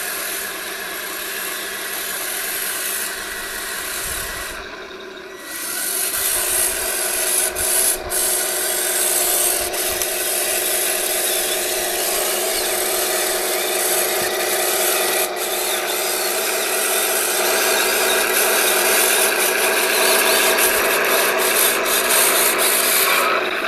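Tamiya 1:16 RC Tiger I model tank driving through deep snow: a steady grinding, rasping run of its drive gearboxes and metal tracks, with a mechanical whine over it. It drops briefly about four seconds in, then runs louder from about six seconds on.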